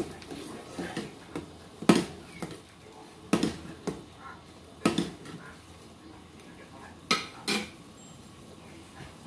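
Large metal spoon clinking against a stainless steel saucepan as soup is stirred, a handful of sharp separate knocks, then two clinks close together near the end as the spoon is set down on a ceramic plate.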